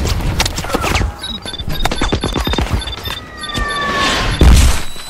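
Film battle sound: bursts of gunfire with short electronic beeps over them, then a falling whistle as a missile comes in, ending in a loud explosion near the end.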